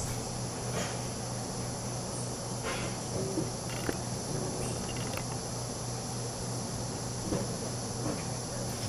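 Steady high-pitched insect chorus, with a few faint short ticks and a low steady hum underneath.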